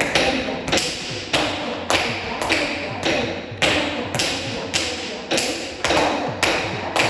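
Even, steady strikes about twice a second, each with a short ring: a wooden stick beating a wooden thattu block to keep time for Tatta Adavu, with bare feet stamping flat on a wooden floor on the beat.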